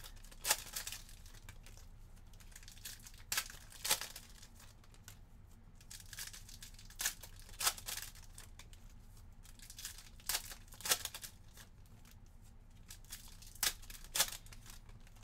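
Foil wrappers of Panini Prizm basketball card packs crinkling and tearing open by hand, in short crackly bursts every few seconds.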